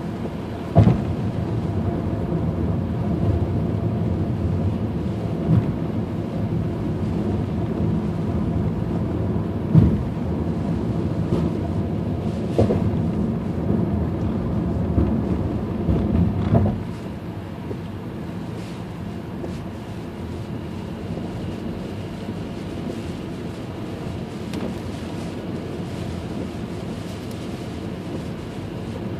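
Inside a car driving on a rain-soaked highway: a steady rumble of tyres and wind, with a few sharp thumps in the first half. It gets noticeably quieter a little past the middle.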